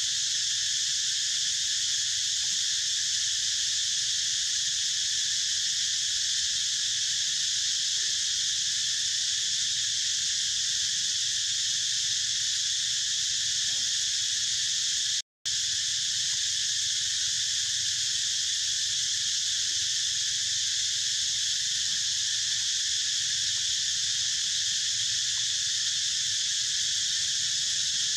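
Steady, unbroken high-pitched drone of an insect chorus, with one brief cut to silence about halfway through.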